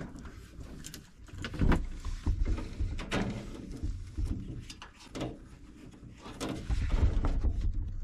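Handling noise inside a sheet-metal cabinet: scattered clicks, knocks and clunks with rustling. It grows to heavier low thuds about two seconds in and again near the end.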